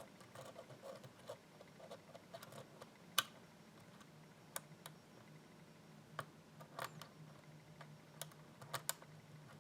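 Faint, scattered metallic clicks and ticks of a hook pick working the pins inside a five-pin pin-tumbler lock under light tension, coming at irregular intervals, a few in quick pairs. A faint steady low hum lies under them.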